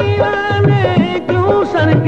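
Instrumental interlude of a devotional Hindi-Urdu film song: a melodic instrument holding and sliding between notes over a steady drum beat.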